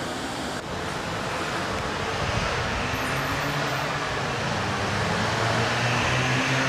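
Street traffic noise with a motor vehicle's engine growing gradually louder, as if approaching.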